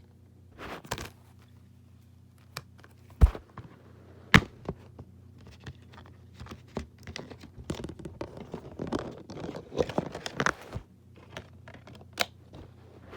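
A Blu-ray combo pack's case and packaging being handled and opened: sharp plastic knocks and clicks, two loud ones about three and four seconds in, then a busy run of clicks and rustling, and a last click near the end.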